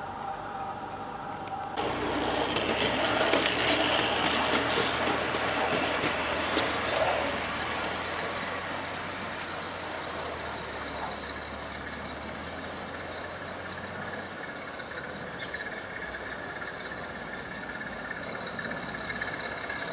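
O gauge model diesel freight train running on outdoor garden railway track: a steady rolling rumble with fine wheel clicks, loudest over the first few seconds after the cut, then settling to a quieter, steady running sound.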